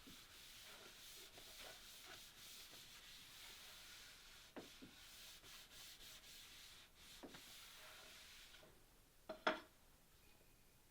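Surface being scrubbed by hand: a faint, steady rubbing with a few light knocks. The rubbing stops about nine seconds in and a sharper double knock follows.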